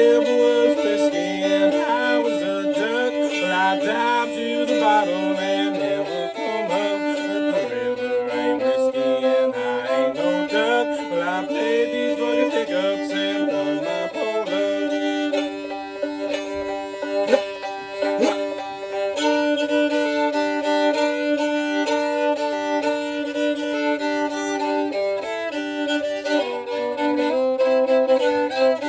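Old-time fiddle tune played on fiddle with banjo. The fiddle bows a sliding melody over a steady drone note, which drops out for a few seconds about halfway.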